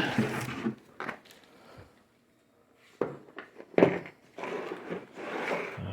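A box of parts being pulled out of packing: scraping and rustling, a quiet pause, then a few knocks, the sharpest nearly four seconds in, and more scraping near the end.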